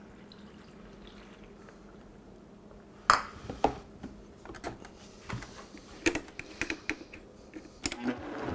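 Plastic lid of a Vitamix blender jar being fitted and pressed down onto the full container: a string of sharp plastic knocks and clicks starting about three seconds in.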